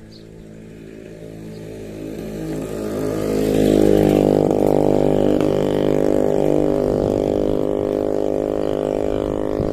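A motor vehicle's engine running at a steady pitch. It grows louder over the first four seconds or so as it comes close, then stays loud.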